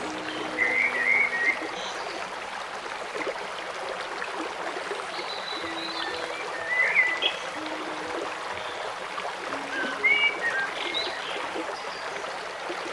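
Steady rushing of a running stream, with a few short high chirping calls in clusters about a second in, mid-way and near the end. Soft held music notes sound low underneath.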